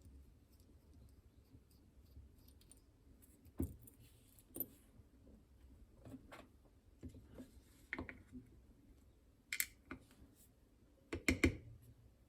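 A lock and small metal tools being handled as the lock is taken apart: scattered metallic clicks, clinks and knocks. There is a sharp knock about three and a half seconds in and a cluster of knocks near the end.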